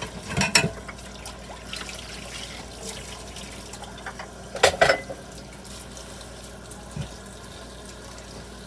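Hot water running steadily from the tap into a plugged sink as it fills for washing dishes. Plates knock against each other as they are stacked in the sink, once just after the start and twice, louder, about halfway through.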